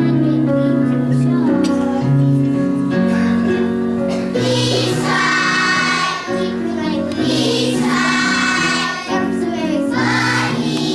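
A children's musical song: voices sing in chorus over an instrumental backing, with sung lines coming in about four, seven and ten seconds in.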